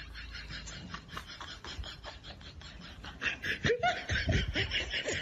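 A person laughing in quick rhythmic bursts, breathy and held in at first, then breaking into louder open laughter about three seconds in.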